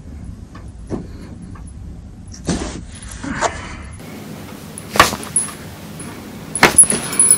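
Neck joints popping during a cervical (neck) adjustment, with the head rotated by hand. One sharp crack comes about five seconds in, then a quick cluster of cracks near the end. Softer clicks and rustling of hands and bedding come before.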